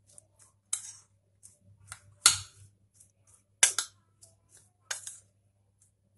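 A metal spoon clinking and scraping against a ceramic bowl while stirring chopped onion and tomato, in uneven strokes with about five louder clinks.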